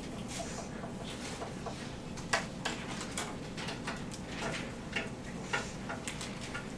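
Scattered light clicks, taps and shuffles over a steady room hum: a classroom of students quietly copying notes at their desks.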